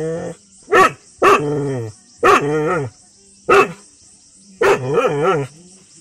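Dog barking in a run of about six calls, short sharp barks alternating with longer barks that waver in pitch.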